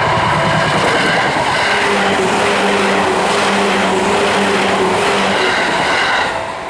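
Seibu Kokubunji Line train passing over a level crossing: a loud, steady rush of wheels on rails with a hum from the train, while the crossing's warning bell keeps ringing in a repeating pattern. The train noise falls away near the end, leaving the bell.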